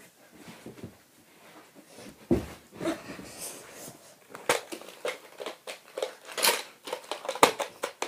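Plastic clicks and knocks from a NERF Elite Strongarm blaster being handled, a series of sharp clacks that come closer together and louder from about halfway through.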